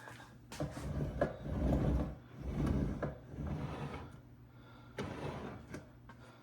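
Mechanical handling noises: a few sharp clicks and knocks, with two longer sliding, rattling sounds near the middle.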